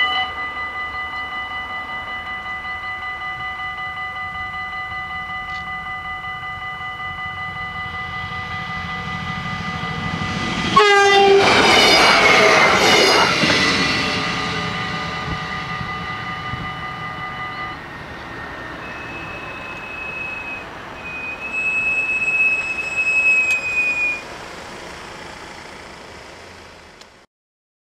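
Dutch level-crossing bells ringing steadily while the barriers are down. About 11 s in a passing train comes in suddenly and loudly, its sound sliding down in pitch as it goes by. The bells stop about 18 s in, and a high thin whine follows for a few seconds as the train moves away.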